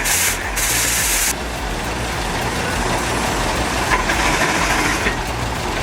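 Heavy machine engine running steadily, with short bursts of loud hiss in the first second or so.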